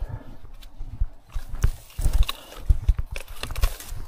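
Footsteps of a hiker walking on a stony path: irregular thudding steps with sharp crunches and knocks close to the microphone.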